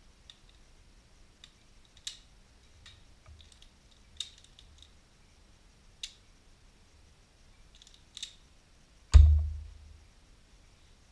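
Hand pliers snipping and stripping electrical wires: a run of short, sharp clicks a second or two apart. About nine seconds in comes a single heavy thump, the loudest sound of all, which dies away over most of a second.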